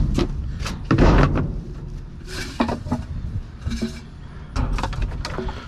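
Scrap metal being handled and dropped: a string of clanks and rattles, with the loudest bangs at the start and about a second in.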